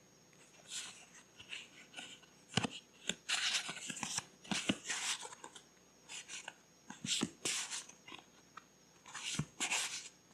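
Paper being handled for journaling: a run of short rustles and crinkles, with a few sharp taps or clicks.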